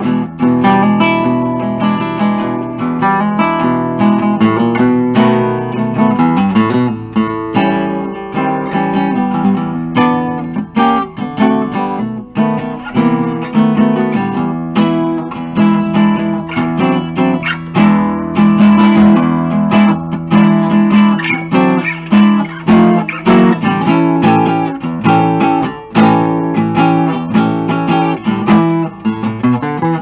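1946 Epiphone Emperor acoustic archtop guitar played continuously with strummed chords and picked notes.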